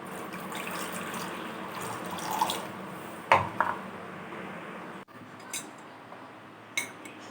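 A cup of water being poured into a microwave bowl of cooked masala, a steady pour that cuts off suddenly about five seconds in, followed by a few faint clicks.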